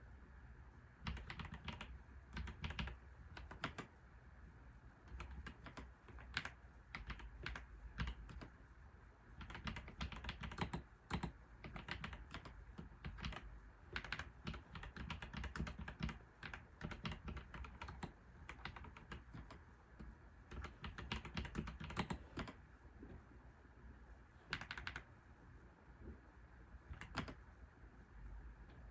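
Computer keyboard typing in runs of rapid keystrokes broken by short pauses, thinning to a few single keystrokes near the end.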